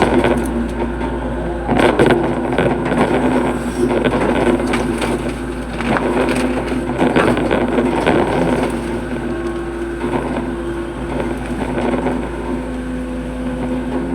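Hitachi hydraulic excavator working: the diesel engine runs with a steady drone while irregular crunches and knocks come from the bucket digging into soil.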